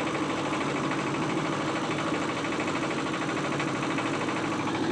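A boat's engine running steadily at a constant speed, with a rapid, even pulsing chug.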